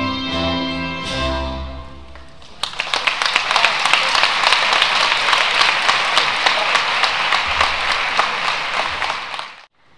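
Dance music ends on sustained notes, then a large audience breaks into loud applause for about seven seconds, which cuts off abruptly near the end.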